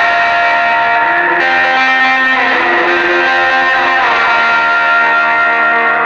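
Electric guitar played with a slide through an amplifier: sustained notes that glide up and down in pitch between held tones.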